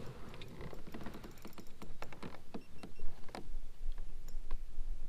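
A run of irregular light clicks and taps, a few to several a second, over a low steady rumble: small handling knocks on a plastic kayak and fishing gear while a fish is being fought.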